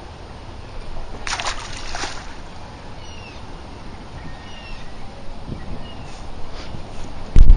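Brief splashing on the water about a second in, then a few short bird chirps, and a loud thump near the end.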